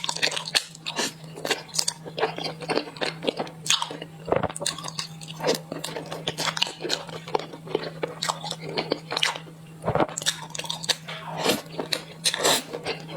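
Close-miked chewing and biting of purple rice bread: a dense, irregular run of short crunchy and wet mouth clicks, over a steady low hum.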